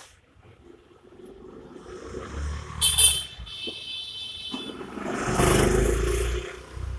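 A motor vehicle passing: a low engine rumble builds, swells to its loudest about five to six seconds in, then drops away. A short, sharp high-pitched sound comes about three seconds in.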